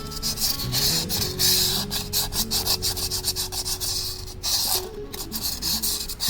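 Sandpaper rubbed in rapid back-and-forth strokes over a glazed drum-brake friction surface, roughening it to cure high-pitched brake squeal. Soft background music underneath.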